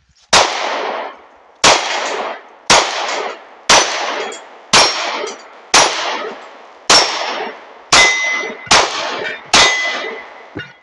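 Ten 9mm shots from a Glock 43X pistol, about one a second, each followed by the clang of a steel knockdown target being hit, with a clear ringing tone after several of the later hits.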